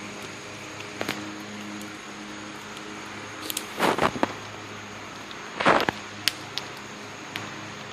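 A dog barking in short, sharp bursts, a cluster about four seconds in and another near six seconds, over a steady low hum.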